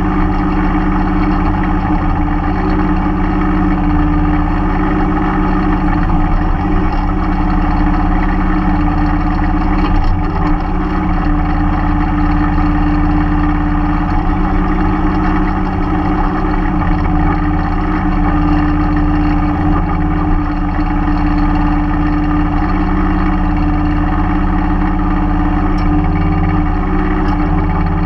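Mahindra 3016 compact tractor's diesel engine running steadily at working speed while the backhoe digs, its note dipping slightly and recovering again and again as the hydraulics take load.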